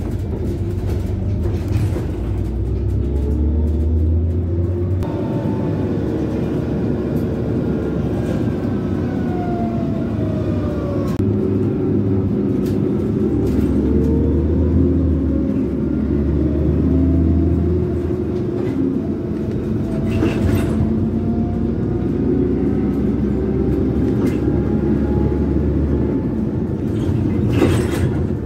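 Karsan Bredamenarinibus Avancity+L CNG city bus heard from inside the cabin while driving: a steady low drone with a whine that slowly rises and falls in pitch as the bus speeds up and slows down. Two sharp knocks are heard, one about two-thirds of the way through and one near the end.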